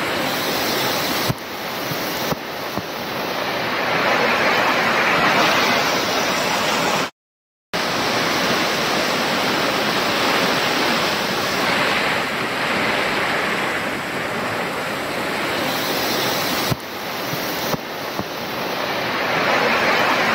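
Torrential rain pouring onto a pond and its earthen embankment, a loud, steady hiss. The sound cuts out completely for about half a second around seven seconds in.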